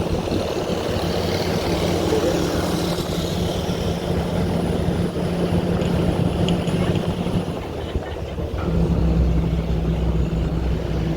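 A motor vehicle's engine running close by with a steady hum; about eight and a half seconds in its pitch drops slightly and it grows louder.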